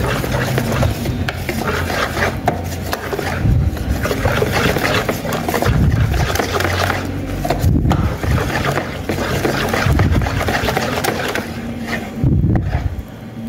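Wire whisk beating thick caramel cake batter in a pot, its wires scraping and rubbing against the pot's sides and bottom in continuous, uneven strokes as freshly added wheat and tapioca flour is worked in.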